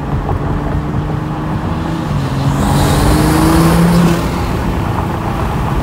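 Toyota GR Supra driving and accelerating, heard from inside the car: the engine note climbs in pitch for about two seconds and breaks off about four seconds in, over heavy wind and road noise.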